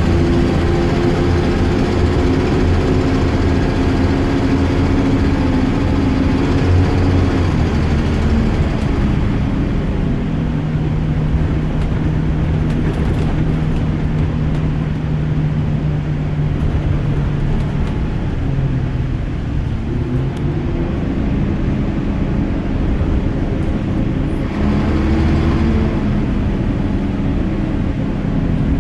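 A bus's diesel engine pulling under way, its note changing with gear and road speed: revving high at first, settling to a lower, steady note about a third of the way in, then climbing again near the end.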